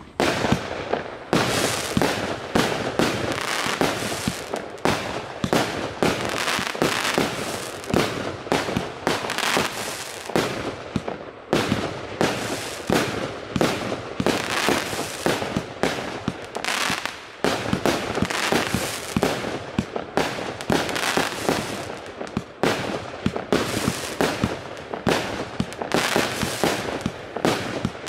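An 80-shot, 1-inch consumer firework cake firing in a rapid, continuous barrage: several sharp launch thumps and shell bursts a second, with crackling in between, and one brief lull about two-thirds of the way through.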